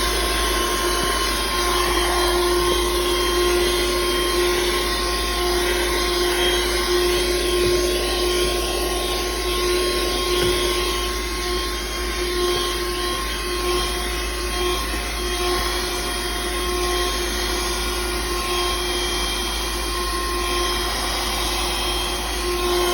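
Handheld car vacuum cleaner running steadily, its motor giving a constant-pitch whine.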